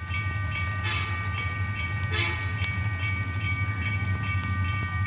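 Diesel locomotive running light, approaching from a distance: a steady low engine rumble with steady high-pitched tones held over it, and two brief whooshes about one and two seconds in.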